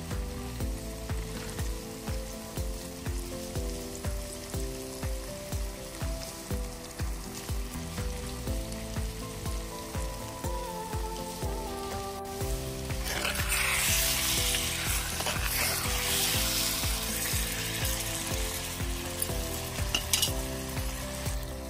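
Upbeat electronic music with a steady beat, and from about halfway through, the loud sizzle of snake gourd curry cooking in an open pot.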